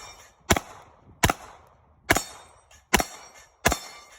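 Gunshots fired one after another at a steady pace, five shots a little under a second apart, each a sharp crack with a short echoing tail.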